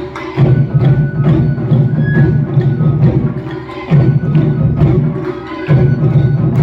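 Japanese taiko drum ensemble playing: a fast run of sharp, clacking strokes over deep drumming phrases that break off briefly about four and about six seconds in.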